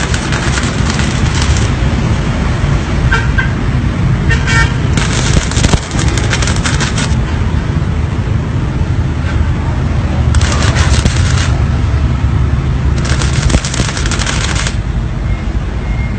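Mini gasless flux-core MIG welder: the arc crackles and spatters in four bursts of one to two seconds each, over a steady low hum.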